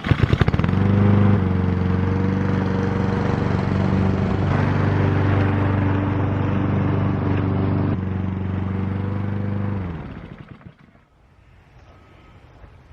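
Small Honda engine on a Toro push mower starting up, running steadily for about ten seconds, then shut off and spinning down.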